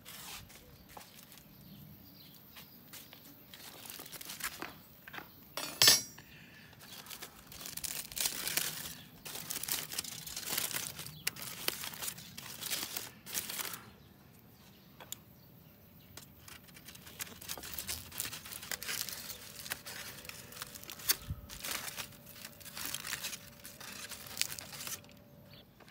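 Aluminium foil crinkling and rustling as foil-wrapped baked potatoes are opened and handled, with clinks of a metal fork and knife against them. One sharp, louder knock about six seconds in.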